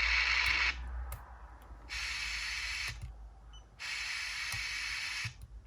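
Radio static hiss from the Aiwa HS-JX505 walkman's tuner while it is being tuned between stations. It comes in three bursts of about a second each, separated by short quiet gaps with small clicks.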